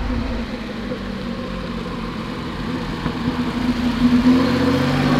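Mercedes-Benz Unimog's engine running as the truck drives slowly along, a steady hum that gets a little louder about four seconds in.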